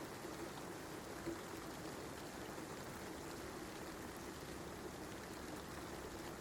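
Steady rain falling, an even hiss with a faint patter of drops and one small tick about a second in.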